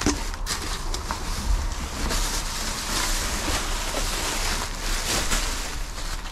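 Wind blowing on the microphone: a steady rushing noise with a low rumble underneath, and a few light knocks.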